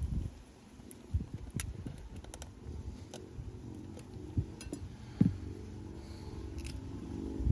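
Small tools and phone parts clicking and tapping at irregular intervals during iPhone disassembly, with a low rumble of hands handling the phone on the bench.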